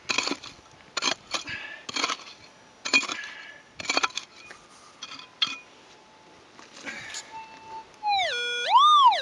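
Pick blade striking hard, stony soil about once a second while a hole is dug. Near the end, a Minelab GPX gold detector with a 14-inch mono coil gives a loud target signal over the hole, a tone that dips and rises in pitch. The signal is the sign of a piece of gold still in the ground.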